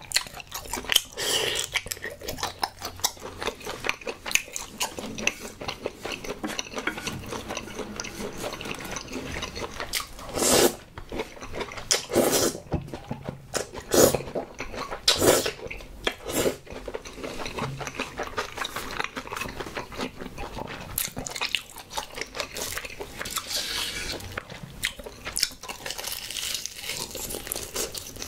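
Close-miked eating sounds: steady wet chewing and biting, with a run of loud slurps of cream pasta noodles in the middle and a bite into a fried chicken drumstick near the end.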